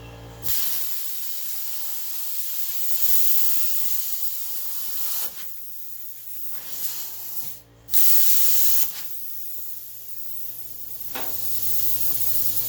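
Plasma cutter hissing as it cuts a hole of about an inch through steel for a light cable. The hiss starts about half a second in, breaks off briefly partway through, then starts again.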